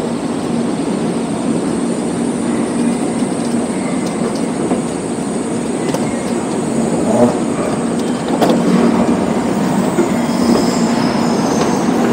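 Steady hum and rumble of a busy Shinkansen station platform, with a train standing alongside and passengers moving about. A couple of sharp knocks come a little past halfway.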